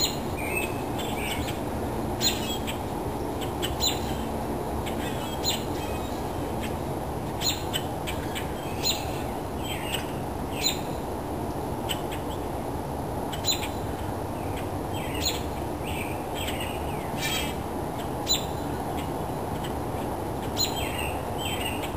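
Morning chorus of wild songbirds: many short chirps and calls, with sharp chip notes every second or two, over a steady low background rumble.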